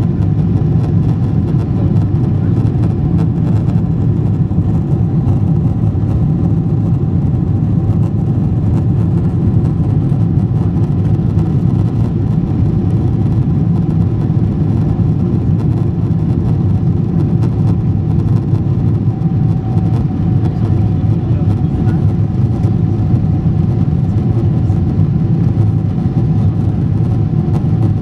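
Cabin noise inside a Boeing 777-200 climbing after take-off: a loud, steady low rumble of the jet engines and rushing air, with a faint steady whine above it.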